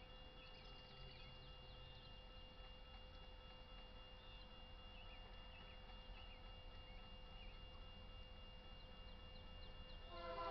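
Near silence with faint bird chirps and a faint steady tone; about ten seconds in, the horn of the oncoming BNSF freight train's lead diesel locomotive starts to sound, loud, with several notes at once.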